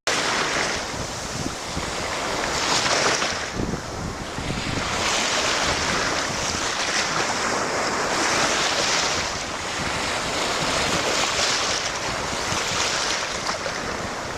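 Waves breaking in the surf: a continuous rushing wash that swells every two to three seconds.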